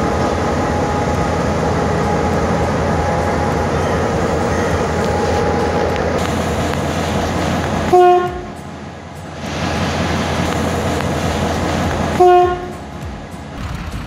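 Sri Lankan Railways Class M6 diesel locomotive running loudly as it rolls past, then two short horn blasts of the same pitch, about four seconds apart, the first about eight seconds in.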